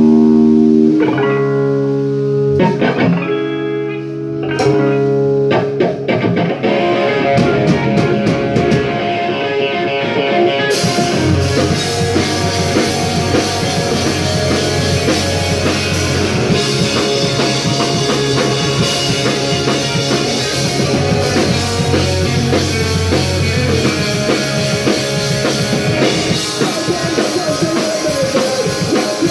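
Punk rock band playing live: an electric guitar opens alone with held chords that change about once a second, the drums come in about six seconds in, and from about eleven seconds the full band plays with loud cymbals.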